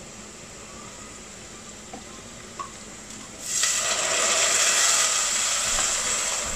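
Warm water poured into hot oil and softened onions in a pot, setting off a loud sizzle about three and a half seconds in that carries on steadily. A couple of faint clicks come before it.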